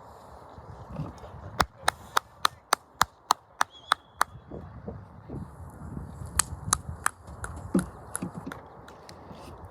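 A quick, even run of about ten sharp clacks, roughly three or four a second, followed by a few scattered ones.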